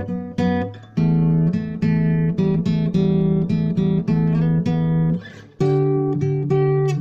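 Instrumental music on acoustic guitar: a slow line of plucked notes, each ringing out, about two to three a second, with short breaks about a second in and about five seconds in.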